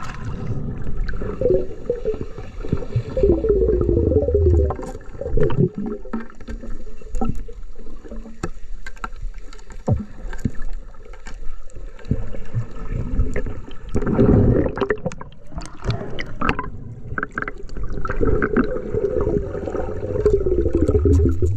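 Muffled underwater sound of a diver moving through the water: low rumbling water movement and bubbling, with many scattered sharp clicks and a louder surge of water about two-thirds of the way through.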